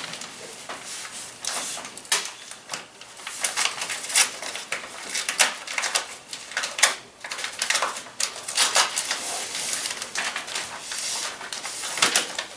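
Paper crackling and rustling close to the microphone, with irregular sharper crinkles: a sealed bid envelope being opened and its pages handled.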